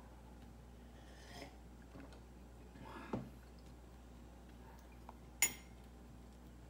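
A cat eating from a small ceramic dish on a glass tabletop: a few scattered clinks and clicks of the dish and the cat's mouth, the sharpest about five and a half seconds in.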